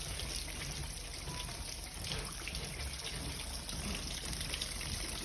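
Water leaking from the house's plumbing pipes, trickling steadily with many small drips and splashes.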